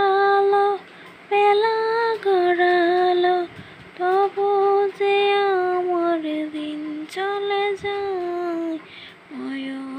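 A woman singing a slow Bengali song in long held notes, the phrases stepping and sliding down in pitch, with short breaths between them.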